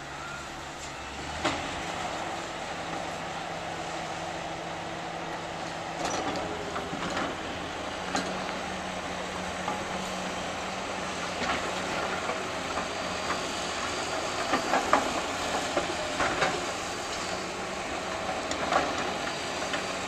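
Heavy diesel demolition equipment running steadily, with scattered clanks and knocks as broken concrete slab debris is handled. The knocks come thicker in the second half.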